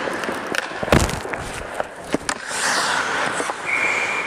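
Ice hockey play at the goal: skates scraping the ice, a loud sharp crack about a second in as a shot comes in on net, a few lighter stick clacks, and a short steady high whistle near the end.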